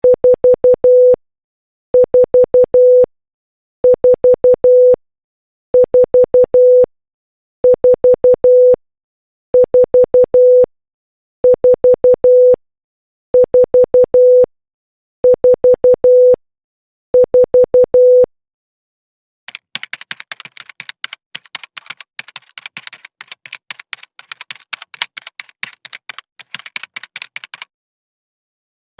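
Morse code beep tone, about 500 Hz, sending the digit 4 (four short dits and one long dah) ten times over, about every two seconds. It is followed by about eight seconds of rapid, irregular clicking.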